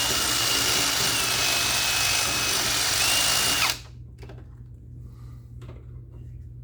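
Electric drill running under load for about four seconds, enlarging a hole in steel, with a steady whine that dips slightly in pitch midway, then stops abruptly.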